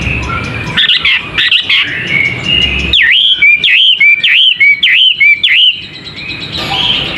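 Male wambi songbird singing clear whistled phrases: a varied run of notes, then about three seconds of repeated swooping down-and-up whistles alternating with short lower notes, fading near the end.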